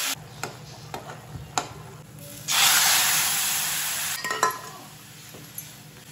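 Food sizzling in hot oil in a steel kadai: a loud burst of sizzling starts suddenly about two and a half seconds in and dies down over the next couple of seconds. A few sharp clinks of a metal ladle against the pan come between and after.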